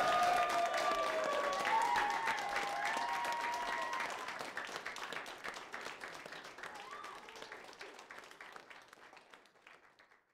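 Small audience applauding, with voices in the crowd over the first couple of seconds; the clapping dies away near the end.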